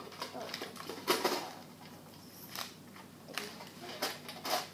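Irregular clicks and crinkles of small plastic toys and wrapping being handled.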